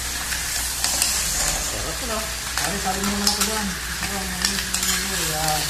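Green-shell mussels being stirred with a metal spoon in an aluminium wok: the shells clatter and scrape against the pan over a steady frying sizzle. A person's voice holds steady notes in the background from about halfway in.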